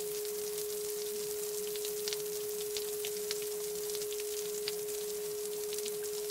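Steady electronic pure tone held at one unchanging pitch, over faint hiss with scattered light crackles.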